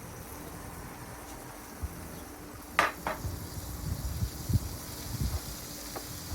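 Food sizzling faintly on a Blackstone flat-top griddle over a steady low hum. About three seconds in come two quick metallic clinks of a utensil against the griddle, followed by a few dull low thumps.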